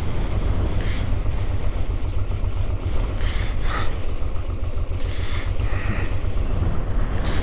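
Strong wind buffeting the microphone, a steady low rumble, with the Honda Transalp motorcycle's engine running underneath.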